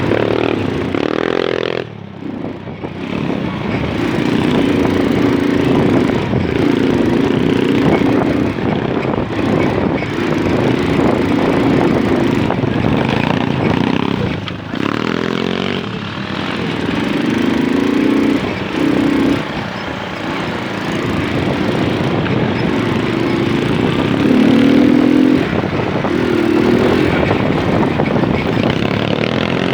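Moped engine running while riding, its pitch rising and falling with the throttle, with a brief drop about two seconds in and another about halfway through.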